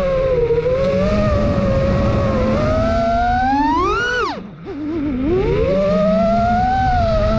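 Brushless motors and propellers of a 5-inch FPV freestyle quadcopter (T-Motor Velox V2 motors on a 6S battery) whining and changing pitch with the throttle. About four seconds in the whine climbs sharply. The throttle is then chopped and the sound nearly cuts out for half a second before the motors spool back up.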